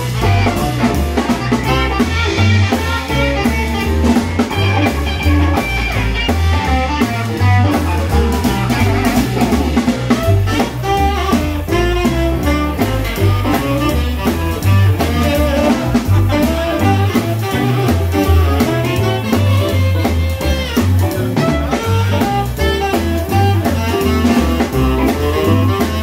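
Live swing combo playing an upbeat jazz-blues instrumental: electric guitars and a drum kit played with sticks over a walking bass line.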